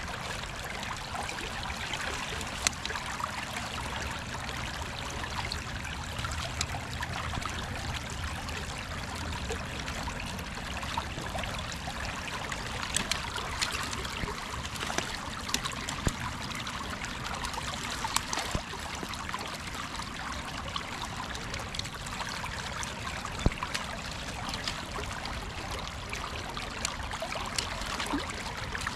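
Creek water running steadily around a wader standing in the current, with scattered sharp clicks and splashes as sticks and debris are pulled out of a trap set at a tree trunk; one louder knock comes a little after two-thirds of the way through.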